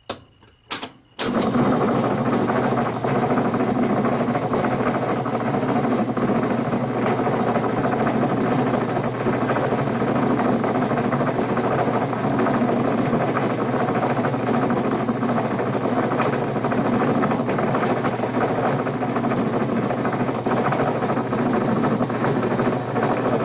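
Maytag Atlantis top-load washer running its agitation cycle with the agitator removed, starting about a second in after a couple of clicks and making a steady, loud grinding noise with a low hum. The owner calls it an awful sound and does not know its cause.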